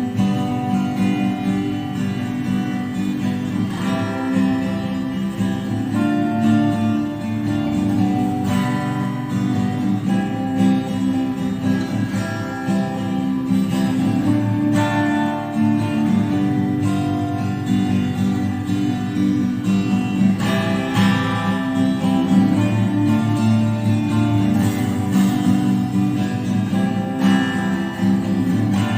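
Acoustic guitar strumming chords steadily, with no singing.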